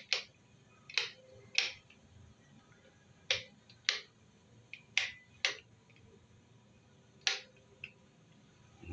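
About eight sharp clicks in a small tiled room, several in quick pairs about half a second apart.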